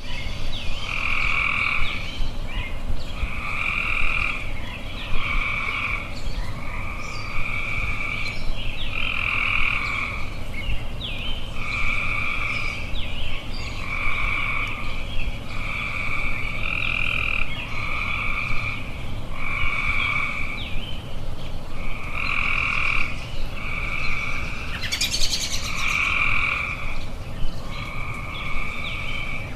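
Tree frogs calling steadily, each call about a second long and repeating roughly every second and a half. Faint short bird chirps come in between, with a brief rapid rattling trill about 25 seconds in.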